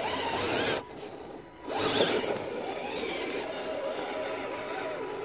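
Electric motor and drivetrain whine of an Axial SCX RC crawler, rising and falling in pitch with the throttle as it climbs. It cuts out for about a second shortly after the start, then comes back with a loud surge.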